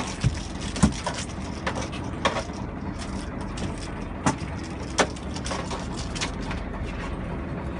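Fishing boat's engine running steadily, with a handful of sharp knocks at irregular intervals over the first five seconds, the loudest about a second in.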